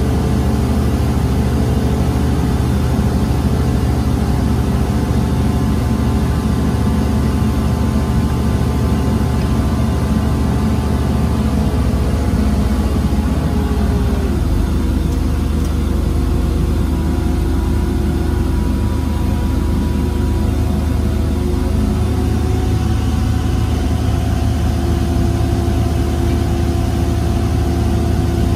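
Link-Belt 75RT rough-terrain crane's diesel engine running steadily, heard from the operator's cab, as the hoist lowers the hook block. Steady tones ride above the engine's rumble, and some of them drop in pitch about halfway through.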